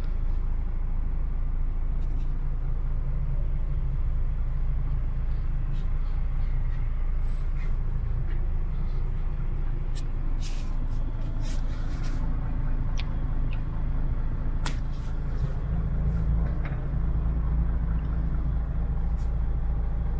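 Paccar MX 460 diesel engine of a DAF XF105 truck idling steadily, heard from inside the cab as a low rumble, with a few light clicks around the middle.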